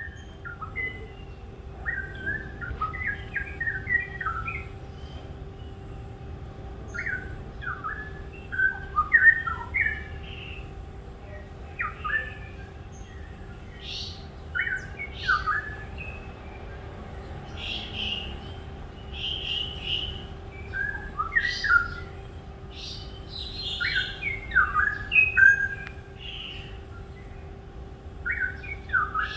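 A songbird chirping and singing in short phrases of quick sweeping notes, with brief pauses between phrases. A faint steady hum sits underneath.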